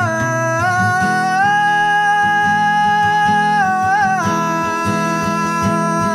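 Live band music: a male singer holds long wordless notes over strummed guitar, with the sung pitch stepping down about four seconds in.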